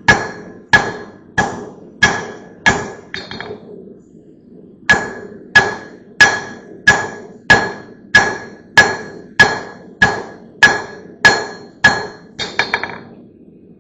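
Hand hammer striking steel on a blacksmith's anvil in a steady rhythm of about one and a half blows a second, each with a bright metallic ring. There are six blows, a short pause, then about a dozen more, finishing with a quick flurry of lighter taps.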